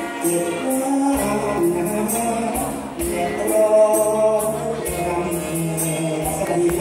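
Live band playing a song: an electronic keyboard melody over a drum kit, with a steady cymbal beat at about three strokes a second.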